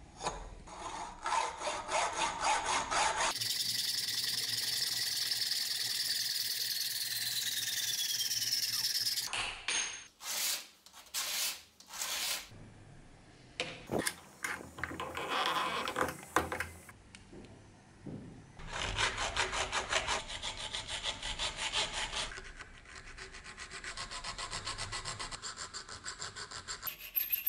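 Hand sawing and filing on an aluminium tube ferrule: rhythmic back-and-forth strokes in several separate bouts, with one stretch of steady hiss and a slowly falling whine. Near the end, quick short strokes of a needle file cutting notches into the ferrule's rim.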